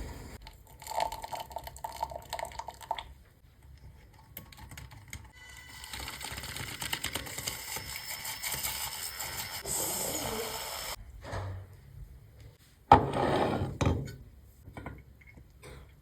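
Drink-making sounds: a couple of seconds of quick rattling clicks, then about five seconds of steady hissing that cuts off suddenly, and a sharp knock near the end followed by a second of rustling.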